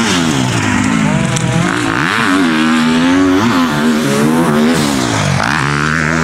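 Motocross dirt bike engine revving hard, its pitch climbing and dropping sharply several times as the throttle is opened and closed.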